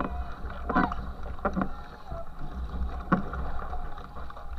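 Racing canoe under way: paddle strokes splash into the water about once a second over the steady rush of water churning at the stern and a low rumble.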